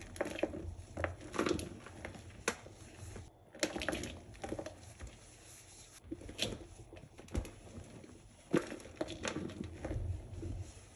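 Hands crushing and crumbling a slab of Comet cleanser powder: soft, irregular crunches with a few sharper cracks, about two and a half, six and a half, and eight and a half seconds in.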